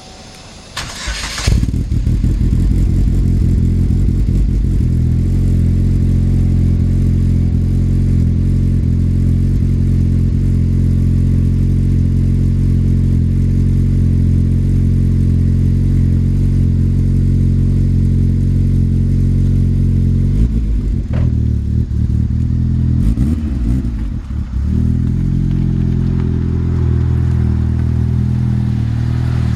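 Turbocharged 2.0 L four-cylinder engine of a 2007 Chevrolet Cobalt SS starting about a second in, then idling steadily. About twenty seconds in the idle wavers unevenly for a few seconds before settling again.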